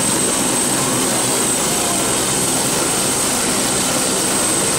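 Turbine aircraft engine running steadily: an even roar with a constant high-pitched whine over it.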